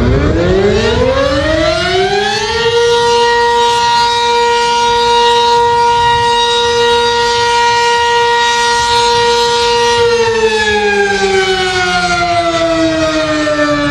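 Civil defence siren winding up over about two and a half seconds, holding one steady pitch for several seconds, then winding slowly down, with the next wind-up just beginning at the very end.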